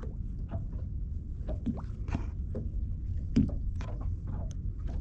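Small waves lapping and slapping against a boat's hull in short irregular splashes, over a steady low rumble. A sharper knock comes about three and a half seconds in.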